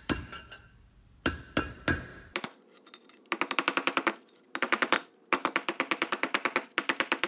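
Hammer striking a brass drift to drive a chilled inner wheel-bearing race into a Toyota solid-axle front hub: a few separate taps, then fast runs of light, ringing metal taps, about eight to ten a second, as the race is driven down toward flush.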